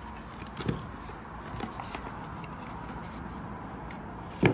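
Cardboard mailer envelope being handled and opened: faint paper rustling and light scrapes, with one sharp click near the end.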